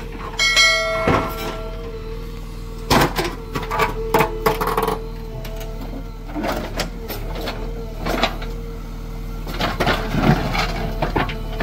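JCB 3DX backhoe loader working: a steady engine hum and whine, broken by repeated clanks and knocks, with a short high squeal near the start.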